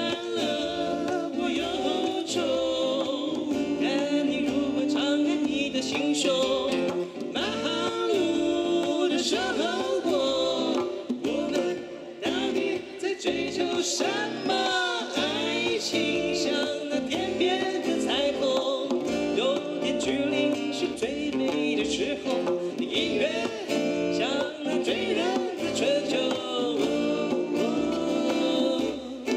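Man singing a country-flavoured song live through a PA, strumming an acoustic guitar, with a steady drum beat underneath.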